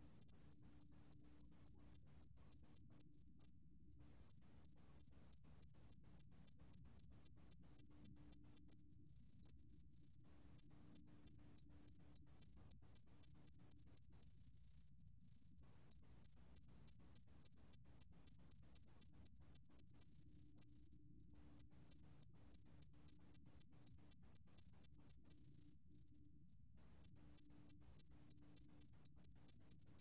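Song of a 새금빛종다리 (Sae-geumbit-jongdari), a small golden cricket, recorded at 20 °C: a single high-pitched note sung as a rapid run of short chirps, about five a second, broken every five or six seconds by an unbroken trill lasting about a second to a second and a half.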